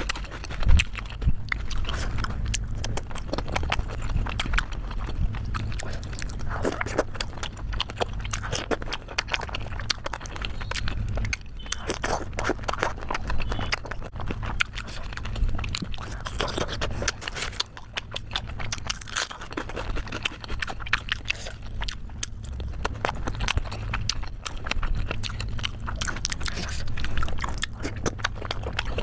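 Close-miked chewing of steamed momos: wet mouth smacks and clicks coming thick and irregular, over a low steady hum.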